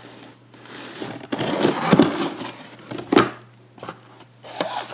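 Packing paper rustling and crumpling, with a few sharp knocks of metal padlocks being handled and set down.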